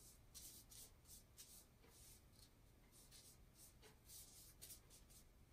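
Wide flat bristle brush stroking back and forth across wet Tyvek, spreading ink: faint repeated swishes, roughly two a second.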